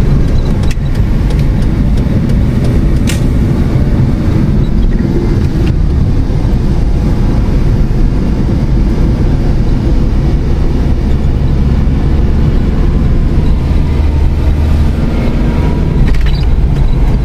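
Steady low rumble of a small car's engine and road noise heard inside the cabin while driving, with a few brief clicks about three seconds in and near the end.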